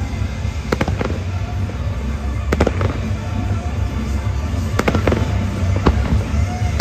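Fireworks going off in a display, several sharp bangs over a steady low rumble, with music playing underneath.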